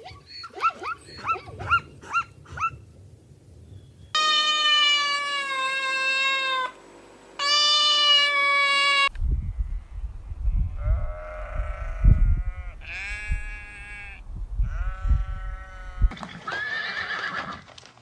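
A string of separate animal-call clips: a few short quick calls, then two long loud drawn-out bleats, then a run of shorter bleats over a low rumble, and another call near the end.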